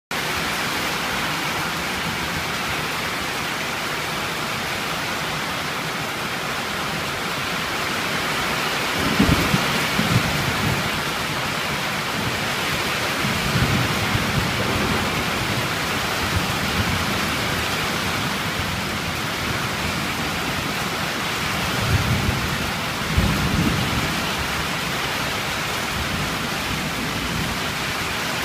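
Steady rain falling hard through a thunderstorm, with thunder rumbling about four times. The sharpest claps come about a third of the way in and again about four-fifths of the way in.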